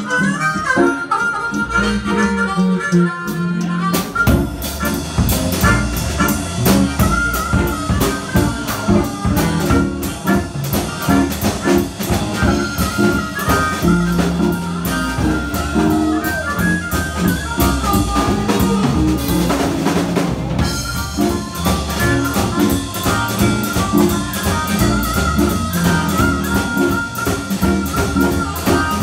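Live blues band: a harmonica played into a microphone carries the melody over electric guitar, and the drum kit and bass come in with a steady beat about four seconds in.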